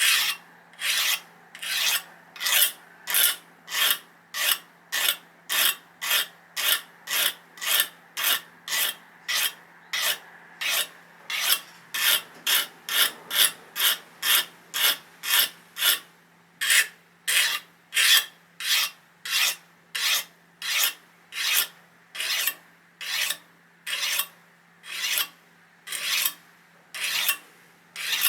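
Very fine hand file stroked along the edge of a steel kitchen knife in steady, even rasping strokes, a little under two a second, filing out the chips and notches in the edge.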